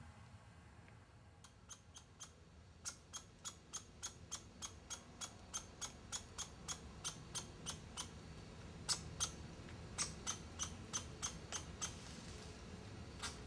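A small animal calling in a long series of short, high chirps, about three a second, starting a second and a half in with a brief pause partway through.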